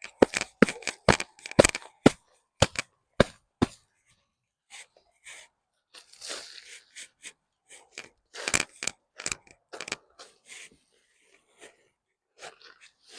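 Hands digging and breaking through dry potting soil in a fabric grow bag: a quick run of sharp crunching cracks through the first few seconds, then scattered crackling and rustling.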